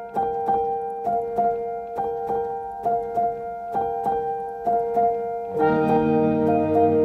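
Background instrumental music with notes struck in a steady rhythm; lower, fuller chords join about five and a half seconds in.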